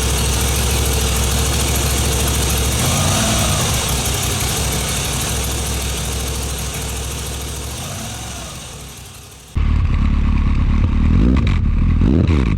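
Suzuki GSX1400 inline-four motorcycle engine: first heard under the bike with heavy wind rush that fades away, then, after an abrupt change about nine seconds in, idling with three short throttle blips that rise and fall.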